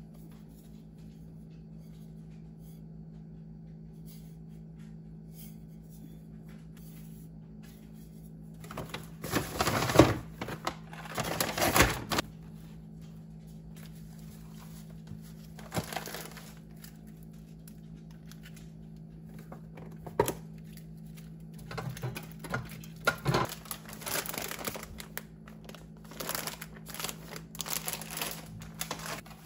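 Paper gift bag and packaging rustling and crinkling as they are handled, in several bursts with short knocks between, over a steady low hum.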